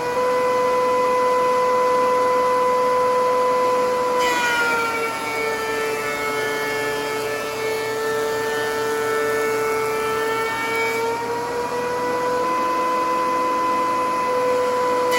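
DeWalt DW735X thickness planer running with a steady high whine. About four seconds in the pitch drops as the motor takes the load of a 4x4 feeding through the cutterhead, and a few seconds before the end it climbs back as the cut finishes.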